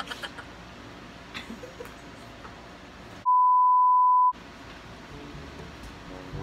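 Television colour-bar test tone inserted as an editing bleep: one steady, pure, high beep about a second long, starting about three seconds in, with all other sound blanked while it plays. Before and after it there is only faint room noise.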